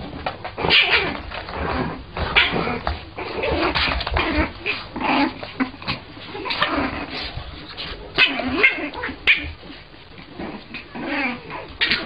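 Puppies yipping and whining in many short cries, some bending up and down in pitch.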